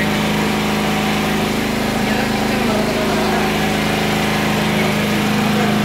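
XLNT 3500E 3 kW petrol portable generator running at a steady, even speed close by.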